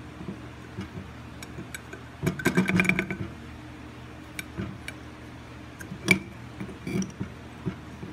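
Plastic end cap of a Daikin ceiling-cassette DC fan motor being prised off with a screwdriver: a flurry of rapid clicks and rattles about two seconds in, a single sharp click about six seconds in, and scattered lighter clicks of plastic and metal parts.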